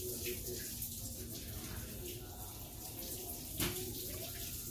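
Faint clicks of a Cavalier King Charles spaniel chewing a treat over steady low room noise, with a single sharp knock about three and a half seconds in.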